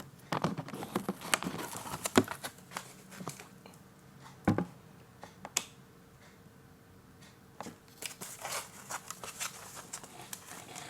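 Motherboard packaging being handled: irregular crinkling and rustling with scattered clicks and taps, and a heavier knock about four and a half seconds in.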